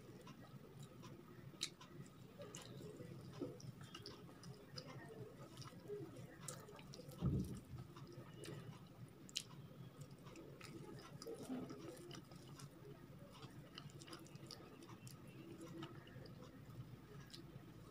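Faint close-up eating sounds of someone eating upma with curry by hand: chewing and wet mouth noises with small clicks and squishes as fingers gather the food, and one low thump about seven seconds in.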